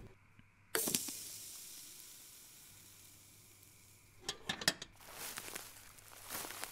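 Campfire being doused with water: a sudden hiss of steam off the embers about a second in, fading away over the next few seconds. Then a few clicks and rustling noises.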